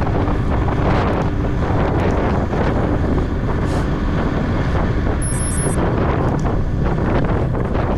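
Steady wind buffeting the microphone of a camera on a moving bicycle, a loud rush heaviest in the low range.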